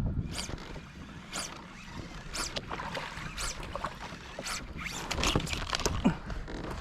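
Fishing line being retrieved by the angler in steady pulls, a swish about once a second, quickening into faster, busier strokes near the end as a striped bass takes the fly.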